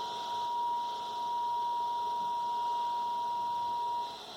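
A steady, pure test tone from a signal generator's modulated signal, played through a Panasonic RF-597 portable radio's speaker, with a hiss of noise under it. The generator output is turned down low so that the receiver's noise can be heard during sensitivity alignment. The tone drops out briefly near the end.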